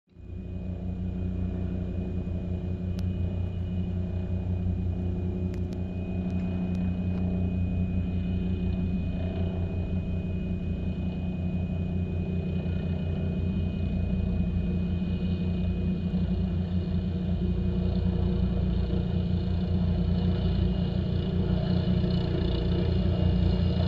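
Rescue helicopter approaching: the rapid, even thump of its rotor blades over a low rumble, growing steadily louder as it nears.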